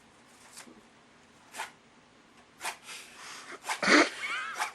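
A person's short breathy noises, then about four seconds in a brief, loud nonverbal vocal sound with a wavering pitch.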